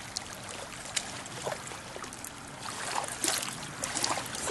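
Shallow lake water lapping and trickling at the shoreline, with a few faint, short splashes.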